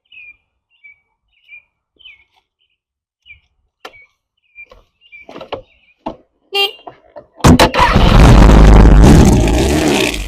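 Small birds chirp, then come a few clicks and knocks, and about seven and a half seconds in a motorcycle engine starts and runs very loud.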